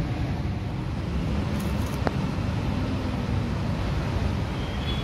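Steady low rumble of city traffic, with wind buffeting the microphone; a single sharp click about two seconds in.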